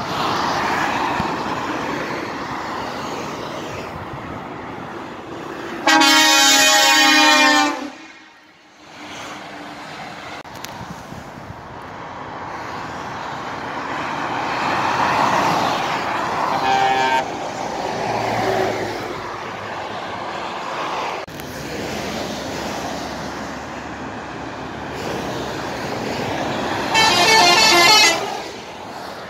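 Motorway traffic passing beneath a bridge, with truck air horns sounding: one loud blast about six seconds in lasting under two seconds, a shorter, weaker toot around seventeen seconds, and another loud blast near the end as a tractor-trailer passes directly below.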